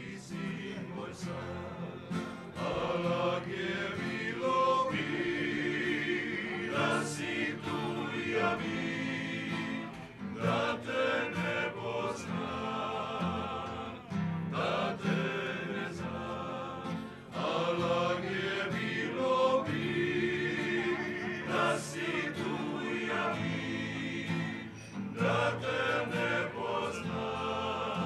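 A group of men singing a song together in harmony, accompanied by a strummed acoustic guitar. The singing pauses briefly between phrases.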